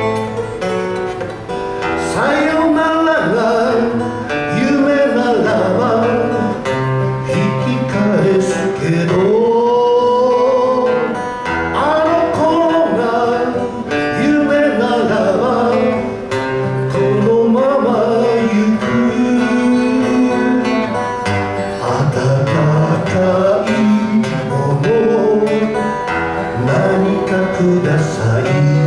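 Two acoustic guitars playing a slow ballad accompaniment while a voice sings the melody with wavering, gliding notes.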